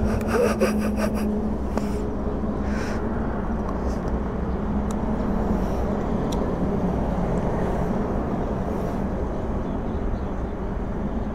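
Royal Enfield Himalayan's single-cylinder engine running steadily at low revs with the bike still in gear.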